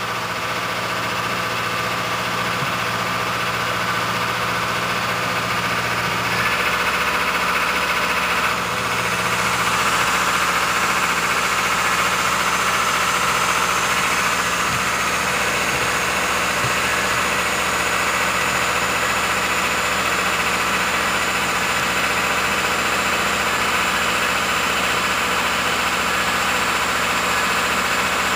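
Steady drone of machinery running while a B-1B bomber is raised on jacks, getting a little louder about six seconds in and again about nine seconds in.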